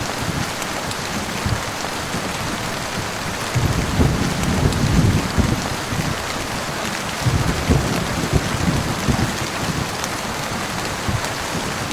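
Heavy rain falling steadily, with low thunder rumbling twice, in the middle and again a little later.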